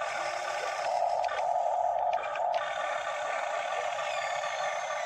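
Electric motors of a radio-controlled Hitachi EX60 model excavator whining steadily as the arm and tracks work, with a few brief changes in the sound.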